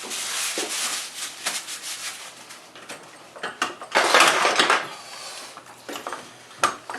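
Handling noise from paper towels and faucet parts: rubbing and rustling with a few light knocks and clinks, loudest in a burst of rustling about four seconds in.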